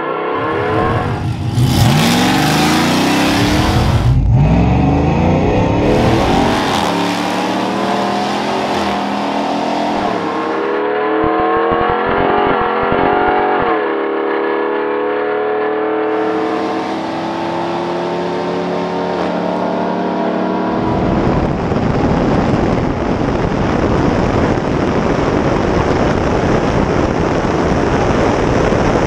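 Supercharged 5.7 Hemi V8 of a 2011 Ram 1500 at full throttle down a drag strip, heard inside the cab: the revs climb and drop back at each gear change. About two-thirds of the way through it turns into a steady rush of wind and engine noise.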